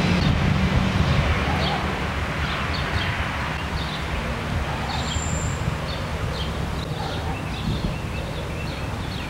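Small birds chirping: short high calls about every second, over a steady low rumble of wind on the microphone.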